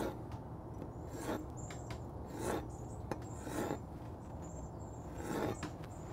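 Kitchen knife slicing soft fire-roasted Hatch green chilies into strips on a plastic cutting board: five rasping strokes about a second apart.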